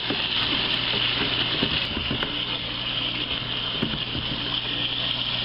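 Hot water running steadily from a kitchen faucet into a plastic bucket, with a low hum underneath and a wooden spoon stirring in the water.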